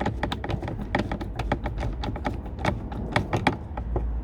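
A screw being driven into a car door trim panel with a hand screwdriver: a run of irregular clicks and taps, several a second.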